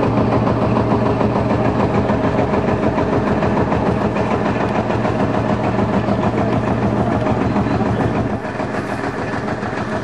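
An old engine idling steadily with an even, rapid beat, growing a little fainter near the end.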